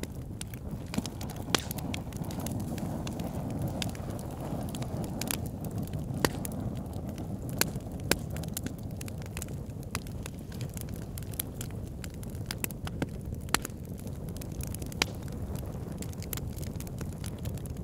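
Fireplace fire crackling: a steady low rumble of flames with irregular sharp pops and snaps, a few of them louder.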